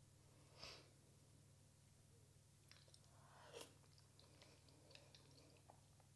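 Near silence with faint eating sounds: soft chewing and small wet mouth clicks from a mouthful of mashed potato, with two soft swells of noise, one about a second in and one near the middle.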